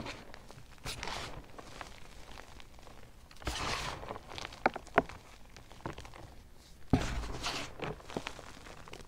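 Hands crushing and squeezing crumbled BSN gym chalk in a plastic bin: soft, dusty crunches in several bursts, with two sharp cracks about five seconds in.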